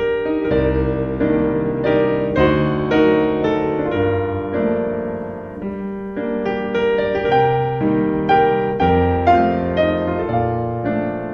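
Piano music: a melody of struck notes over low chords.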